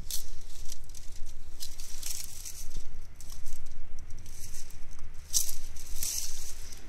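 Dog digging and nosing in dry leaf litter, the dead leaves rustling and crackling in irregular short bursts.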